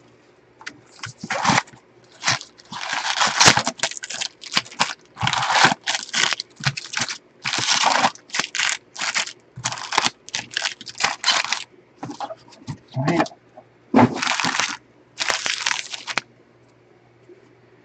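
A 2020 Bowman Jumbo trading-card box being unwrapped and opened, with plastic shrink-wrap crackling and cardboard tearing in short, irregular bursts. Foil-wrapped card packs rustle as they are pulled out and stacked. The handling stops about two seconds before the end.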